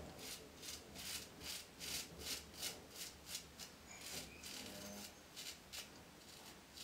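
RazoRock Black Hawk razor shaving stubble on the lathered neck: a quick series of short scraping strokes, about four a second, with a brief pause about four seconds in.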